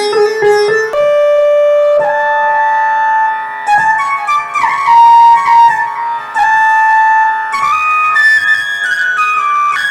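Korg TR keyboard playing a slow melody on a flute preset: long held notes with a few sliding ornaments. It follows the last plucked notes of a sitar tone in the first second.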